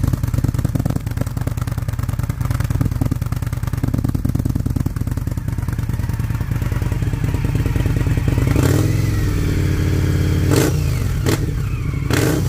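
Indian motorcycle V-twin running through its stock S&S exhaust with part of the baffle cut out to free the flow and make it louder: a steady, deep idle, a blip of the throttle about two-thirds through, and a few sharp cracks near the end.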